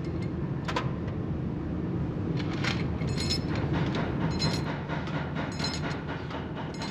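Workshop machinery running with a steady low rumble, and from about two and a half seconds in, sharp ringing clanks of steel on steel every second or so.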